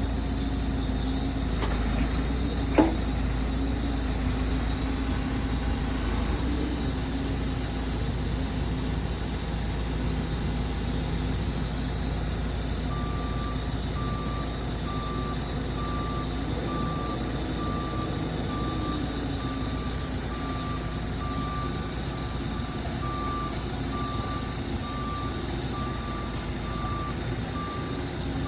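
Heavy diesel farm machinery engine running steadily. About halfway through, a reversing alarm starts beeping about once a second and keeps going.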